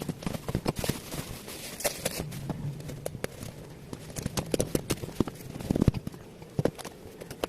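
Irregular knocks, taps and crackles of a box and its packaging being handled and opened.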